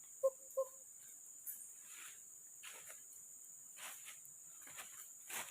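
Two short pitched animal calls in quick succession, followed by intermittent rustling in the undergrowth, over a steady high drone of forest insects.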